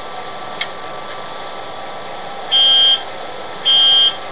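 Sound-decoder diesel engine noise from an H0 Class 66 model locomotive running steadily, with a short click under a second in. From about two and a half seconds in, a loud high beep about half a second long repeats roughly once a second, twice in all.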